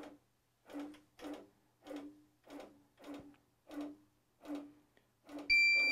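Grace Q'Nique 16x Elite longarm quilting machine stitching slowly, a short stroke about every two-thirds of a second. Near the end, a loud, high electronic beep lasting about half a second.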